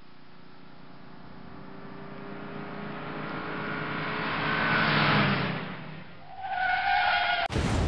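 Car sound effect: an engine swells to a loud pass about five seconds in and fades. About six seconds in the tires screech, and near the end that is cut off by a sudden loud burst of noise.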